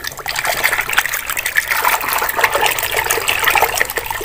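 Hand scrubbing a small plastic toy under soapy water in a plastic bucket: continuous sloshing and splashing with many small watery splats.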